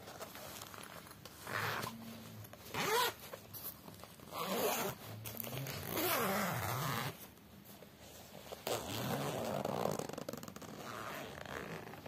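Zipper on a fabric expandable travel bag being drawn along in several strokes, each lasting from about half a second to a second and a half, with fabric handling between them.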